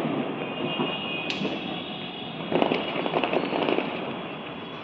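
Firecrackers going off: a sharp crack about a second in, then a run of rapid crackling pops lasting about a second, from about two and a half seconds in.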